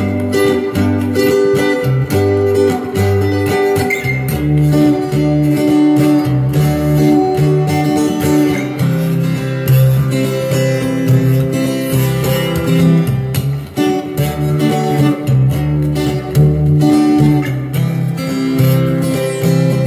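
Guitar being strummed and picked, a run of chords that change every second or two with a steady strumming rhythm.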